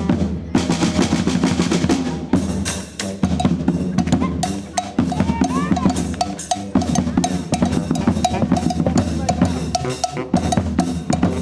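Street band's drum section playing a percussion break, with snare and bass drums in a dense, driving rhythm and no horns.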